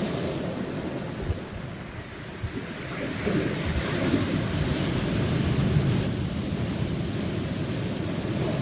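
Sea waves washing onto a rocky shore, a surge building about three seconds in and easing off after about six, with wind buffeting the microphone.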